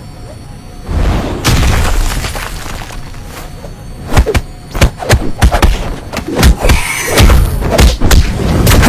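Cartoon fight sound effects: a low boom about a second in, then a quick run of sharp punch and kick impacts from about four seconds, ending in another deep boom, over background music.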